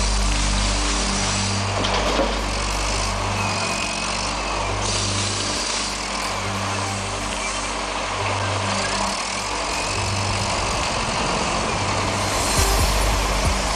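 Wheel loader's diesel engine running as the machine works its bucket, with a louder rush and a few low knocks near the end.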